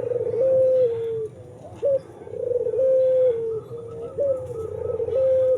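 A dove cooing in repeated phrases, each a short upward note followed by a long, low, held coo that sags slightly at the end. A faint, fast chirping from a smaller bird runs underneath in the second half.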